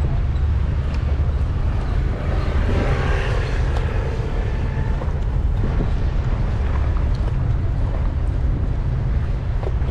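Steady low rumble of outdoor traffic, with a vehicle passing that swells and fades about three seconds in.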